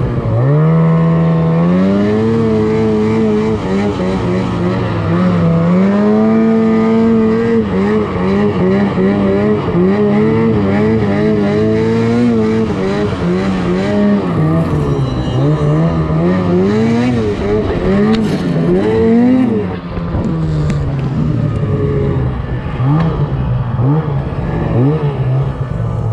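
Two-stroke mountain snowmobile engine revving up and down as it is ridden through deep powder, its pitch rising and falling with the throttle. It climbs sharply in the first couple of seconds and drops to a lower, rougher note about twenty seconds in.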